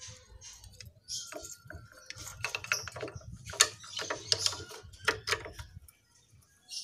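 Small metallic clicks and taps of a motorcycle front brake caliper being fitted back onto the fork leg by hand, with its mounting bolt being turned in. The clicks are quick and irregular and stop about six seconds in.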